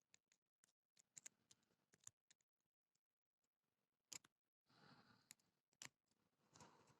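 Near silence broken by a few faint, scattered clicks: small plastic clips and wires of a diesel injector wiring connector being handled as the wire pins are released.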